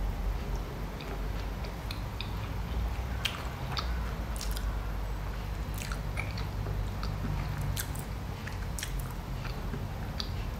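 A person biting into and chewing soft chickpea bread with cream cheese: small wet mouth clicks and smacks scattered through, over a steady low hum.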